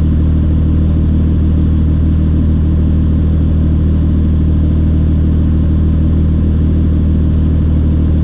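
Acura CL V6 engine idling steadily and smoothly. The car has a misfire on cylinders 1 and 4 that only comes on intermittently at highway speed, so the engine does not shake at idle.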